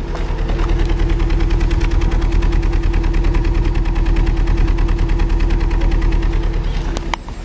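Exhaust of a 2004 Vauxhall Astra Mk5's 1.6 Z16XEP four-cylinder petrol engine at idle, chuffing like a choo-choo train with a fast, uneven pulsing beat, louder after the first second. The beat is a misfire on cylinder one, which the owner puts down to a failed head gasket letting oil and coolant into that cylinder.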